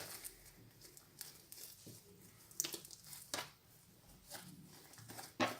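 Faint sticky crackling and squishing of fluffy shaving-foam slime being squeezed and stretched by hand, with a few sharper clicks.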